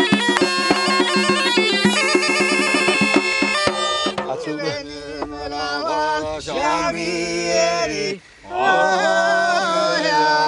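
Folk music: a steady drone under a fast melody and a quick beat, which gives way about four seconds in to voices singing long, bending notes, with a brief break near the end.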